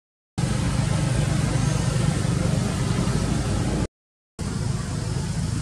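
A steady, engine-like rumble with hiss, cut off by two short drops to silence: one at the very start and one about four seconds in.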